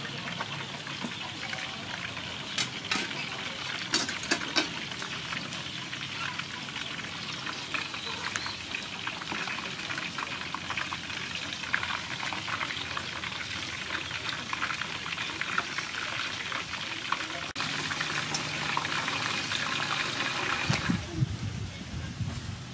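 Slab of pork belly deep-frying in hot oil, a steady crackling sizzle with scattered sharp pops, a few louder ones in the first five seconds. The sizzle cuts off about two seconds before the end.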